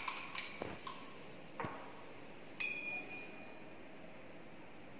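Glass stirring rod tapping against a glass beaker, a few quick clinks that slow and stop within the first second. Then two separate clinks of glassware being handled, the second, about two and a half seconds in, ringing briefly.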